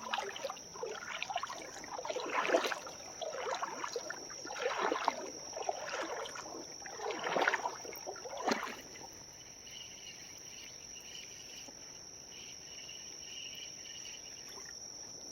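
Irregular splashing and sloshing of shallow creek water over the first eight seconds or so, several separate splashes, against a steady high-pitched drone of summer insects. After that only the insect drone goes on, with a fainter warbling insect or bird note on top.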